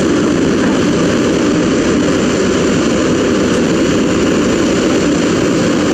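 Kobelco SK200 hydraulic excavator's diesel engine running steadily, a loud constant hum with no change in pitch or level.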